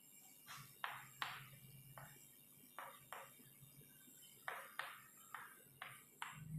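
Chalk writing on a chalkboard: about a dozen short, faint scratches and taps at an irregular pace.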